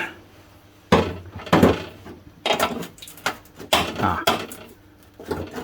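A steel pry tool levering at a rusted section of a car door's bottom skin to break it free: a run of irregular metal knocks, scrapes and creaks, quieter near the end.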